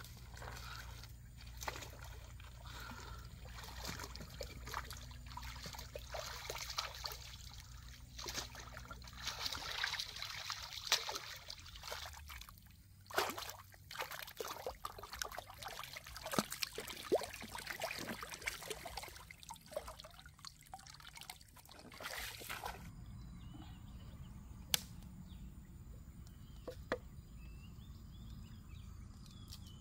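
Water sloshing and splashing in irregular strokes as hands wash a skinned crocodile carcass in a shallow stream. Near the end it gives way to a quieter background with a couple of sharp clicks.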